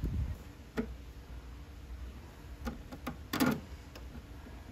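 Scattered light clicks and knocks of needle-nose pliers working a spring hose clamp on the clutch line, over a low steady hum. The loudest knock comes about three and a half seconds in.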